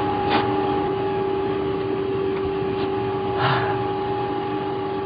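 Reel-to-reel film projector running: a steady mechanical hum and whir, with two short rushes of noise about half a second and three and a half seconds in.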